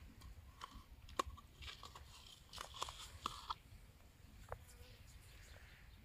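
Faint, irregular crunching and clicking as fingers squeeze and knead soft white bait in a small plastic bowl.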